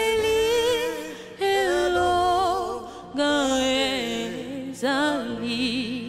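A woman singing a gospel song in long held phrases with vibrato, over a soft sustained keyboard accompaniment.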